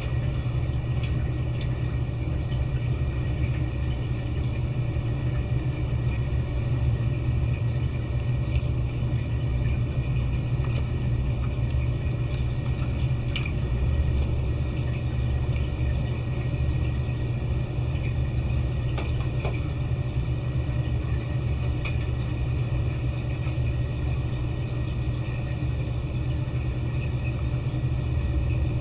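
Steady low hum with a few faint, scattered clicks.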